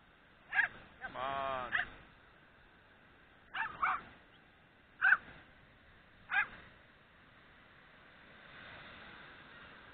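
A dog giving short, sharp yelping barks, about six over several seconds, with one drawn-out whine about a second in.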